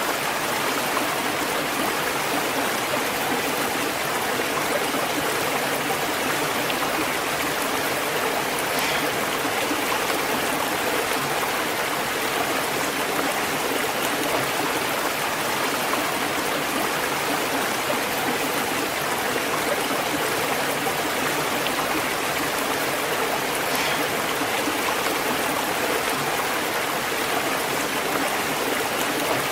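Waterfall and flowing stream water: a steady, unbroken rush of falling and running water.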